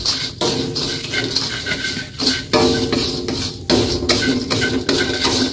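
Wooden spatula stirring and scraping dry instant noodles around a stainless steel wok in repeated strokes, knocking against the metal, as the noodles are toasted brown and crisp.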